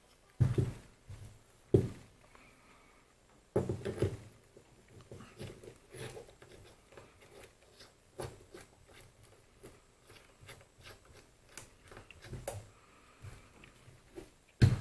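Metal parts of a small lathe's topslide and its bolts being handled on a workbench: irregular sharp knocks and clinks, the loudest about half a second in, near two seconds in and just before the end, with lighter clicks between.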